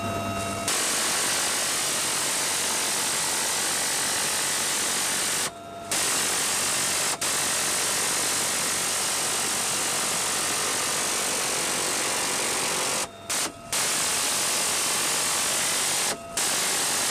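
Helicopter door gun firing in long continuous bursts, a loud dense rattle heard from inside the cabin. It breaks off in several short gaps.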